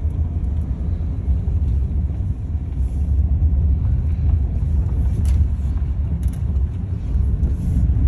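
Steady low road and tyre rumble inside the cab of a Rivian electric pickup truck on the move, with no engine note, and two light knocks a little past the middle.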